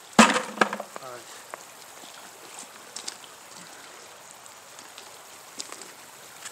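Two sharp knocks about half a second apart, then a brief voice sound and a few faint ticks over a faint steady hiss.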